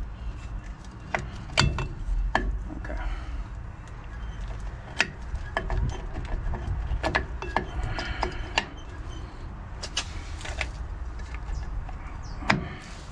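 Metal clicks and clinks of drum brake shoes, springs and adjuster hardware being worked into place by hand on a 1995 Chevy Silverado's rear backing plate. There are about eight single knocks, spaced irregularly, with a louder one near the end.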